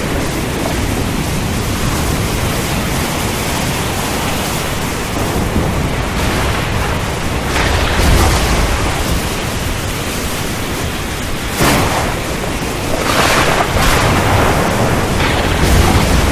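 Storm recording: a loud, steady rush of heavy rain and wind, with low thunder rumbles swelling about halfway through and again near the end.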